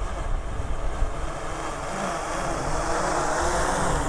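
DJI Mavic 3 Pro quadcopter's propellers buzzing, growing louder over the last two seconds as the drone comes back in on automatic return-to-home after losing its controller link. Wind rumbles on the microphone underneath.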